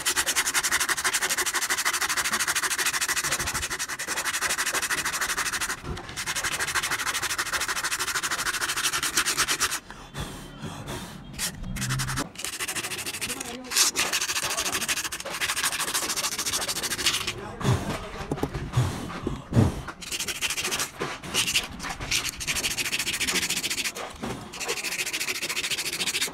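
Abrasive paper rubbed hard across the commutator bars of a rewound motor armature: a rapid, gritty scratching. It is continuous for about ten seconds, then breaks off and comes back in shorter, uneven strokes with a few knocks.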